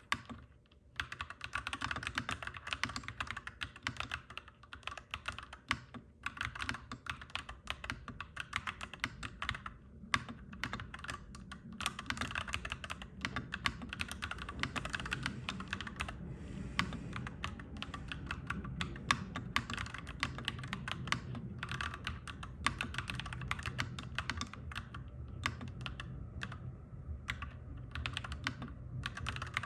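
Mechanical keyboard typing in fast, continuous runs of clacky keystrokes with brief pauses, over a low background rumble that grows stronger from about halfway through.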